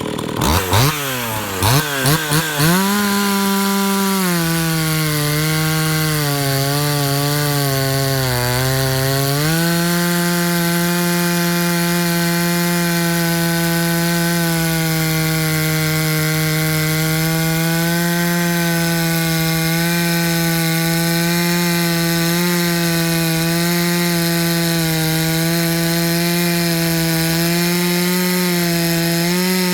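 Husqvarna 44 two-stroke chainsaw engine running. It is blipped to high revs a few times at the start, drops to a slightly uneven idle, and about ten seconds in settles into a steady idle for the rest.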